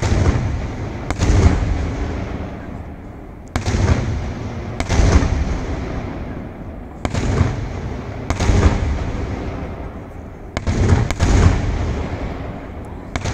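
Aerial fireworks bursting overhead: sharp bangs, mostly in pairs a second or so apart, coming about every three seconds. Each bang dies away slowly over a couple of seconds.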